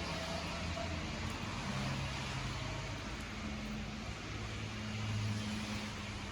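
Campfire burning with a steady hiss and a few faint crackles, over a low wavering hum.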